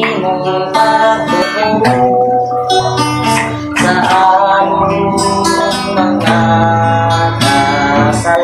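Acoustic guitar strummed in chords while a man sings a Bisaya-language Christian worship song, holding long notes between the strums.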